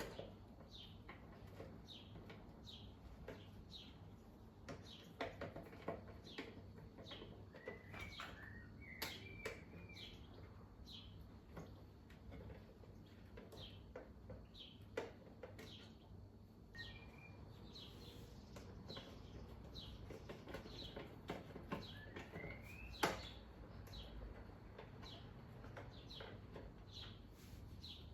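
Faint clicks and light handling sounds of a screwdriver undoing the mains cable connections inside a Numatic WV380-2 wet-and-dry vacuum, with short high chirps throughout and one sharper click near the end.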